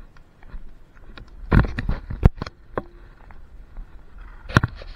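Sharp knocks and clatters: a cluster about a second and a half in, the loudest a single sharp click, and another near the end, over a low rumble.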